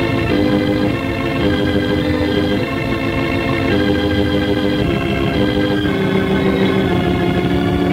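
Organ music bridge: held chords that shift every second or so, marking a scene change in an old-time radio drama.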